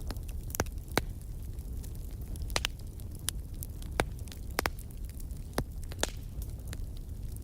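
Wood fire crackling in a fireplace: irregular sharp pops and snaps, about a dozen, over a low steady rumble.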